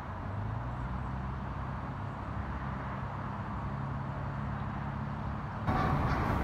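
Steady low rumble of road traffic. Near the end it turns abruptly louder and brighter.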